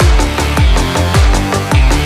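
Electronic background music with a fast drum-and-bass beat: deep kick drums falling in pitch about twice a second over held bass notes.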